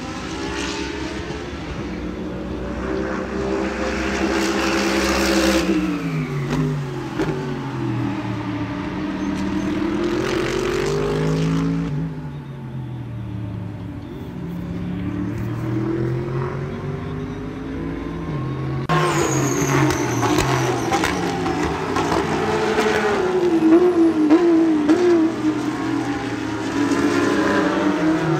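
Racing car engines at high revs, several overlapping, their pitch rising and falling. The sound drops quieter about twelve seconds in and turns louder about nineteen seconds in.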